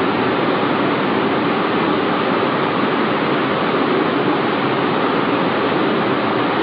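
Steady rushing noise at an even level, with no rhythm, no tones and no distinct events.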